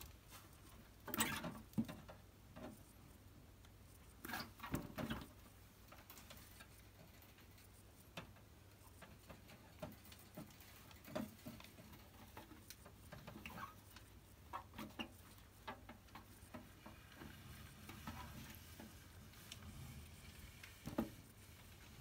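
Faint scattered scrapes, bumps and rustles of a hand and an African bullfrog, a hamster in its jaws, moving against a wet plastic tub, with louder bursts about a second in and again around four to five seconds in.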